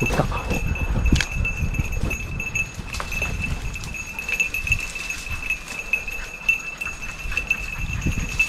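Footsteps and the rustle and crunch of dry ferns and undergrowth as someone moves quickly on foot through a forest slope, with a steady thin high-pitched tone running underneath.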